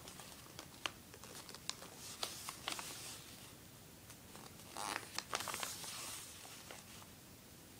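A strip of paper being folded and creased by hand: faint crinkles and small clicks, with a longer rustle about five seconds in.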